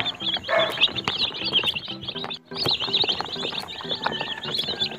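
A crowd of day-old chicks peeping constantly in a brooder, many high chirps overlapping. The peeping breaks off for a moment about halfway through.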